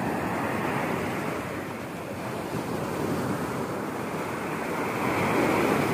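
Surf breaking on a sandy beach, a continuous rush of waves that swells louder near the end.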